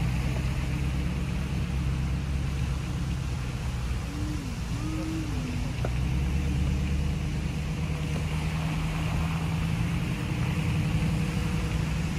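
Car engine and road noise heard from inside the cabin: a steady low rumble with a low hum. A short tone wavers up and down about four seconds in.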